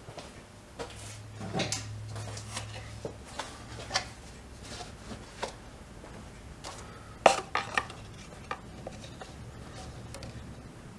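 Scattered light clinks and knocks of tools and parts being handled during an oil change, the sharpest about seven seconds in, with a low steady hum underneath.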